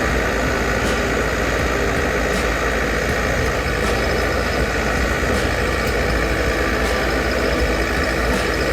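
Engine of a heavy timber-handling machine running steadily, with a faint high tick about every one and a half seconds.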